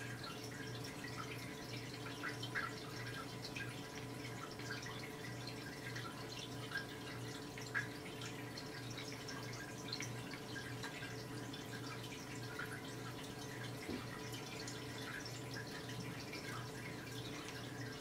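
Aquarium water circulation: a light, continuous patter of small drips and bubbles over a steady low hum.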